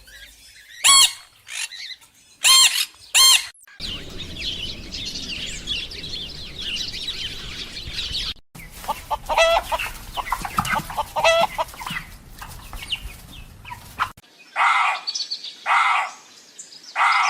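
Chickens clucking and squawking in a string of short clips that cut abruptly from one to the next. There are sharp, pitched calls in the first few seconds, a busier, noisier stretch of overlapping calls, and a few calls about a second apart near the end.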